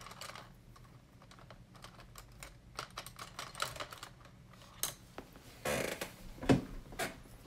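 Paintbrushes clicking and rattling against each other and a glass jar as a hand sorts through them, with a short scrape and a louder knock near the end.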